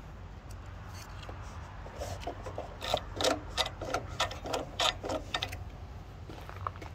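A run of irregular clicks and rattles as a lawn mower engine is turned over by hand by its flywheel screen, for about three seconds from two seconds in. The engine turns freely: it is not seized.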